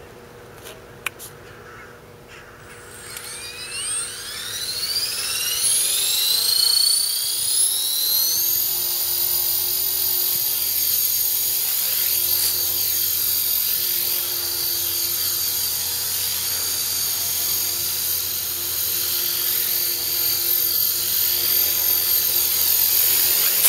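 EXI 450 Pro electric RC helicopter spooling up and flying: the motor and rotor whine rises in pitch over about five seconds, then holds steady as it lifts off and hovers. A short click about a second in, before the spool-up.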